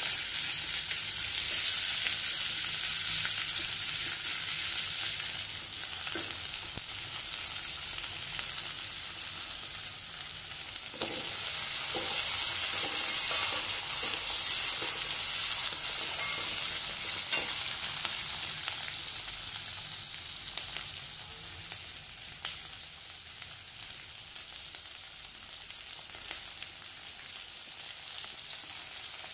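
Green capsicum strips sizzling as they fry in hot oil in a kadai, with a slotted steel spatula scraping through them now and then as they are stirred. The sizzle gradually grows quieter toward the end.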